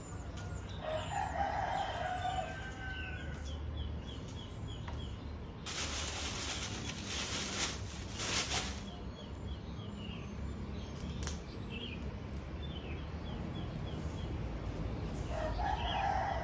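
A rooster crowing twice, once about a second in and again near the end, each crow lasting about a second.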